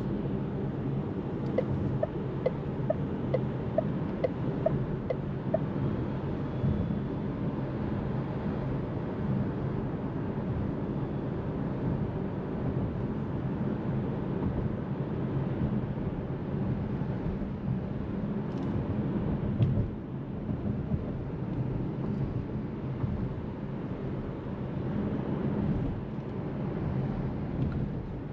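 Tyre and road noise heard inside the cabin of a Seres 3 electric SUV driving on city streets: a steady rush with a low hum and no engine note. Near the start comes a run of about ten short, even ticks, about two a second, and a single thud sounds about twenty seconds in.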